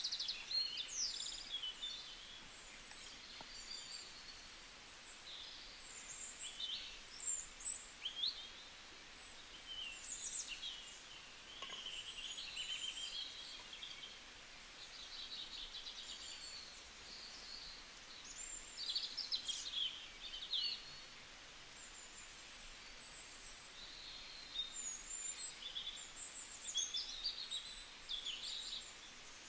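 Birds chirping and calling outdoors: many short, quick high calls that slide up and down, some in fast trills, over a steady faint hiss.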